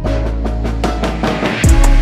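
Background music: a quick run of drum hits builds up, then heavy drums and a deep bass come in about one and a half seconds in, making it louder.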